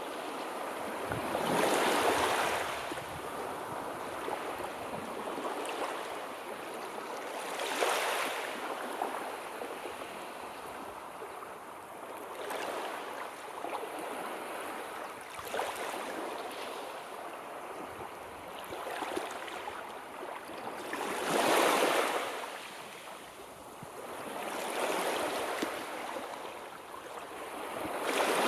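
Sea waves breaking and washing on the shore: a steady hiss of surf that swells and fades every few seconds, with the biggest waves about 2 s in, about 8 s in, past the 20-second mark and at the very end.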